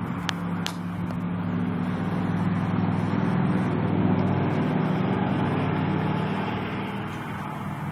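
A motor vehicle's engine drones steadily close by, growing louder to about four seconds in and then fading away as it passes.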